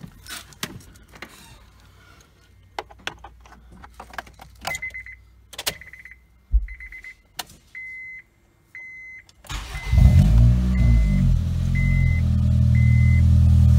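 A 2005 Honda Civic EX's 1.7-litre four-cylinder being started for the first time on a newly fitted aftermarket header and cat-back exhaust. Clicks and handling noises come first, with the car's warning chime beeping about once a second. About ten seconds in the engine catches and keeps running, getting slightly louder.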